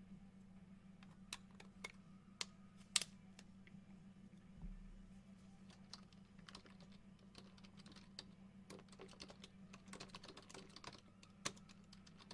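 Faint scattered light clicks and taps over a steady low hum, a few sharper clicks early on and a denser cluster of them late.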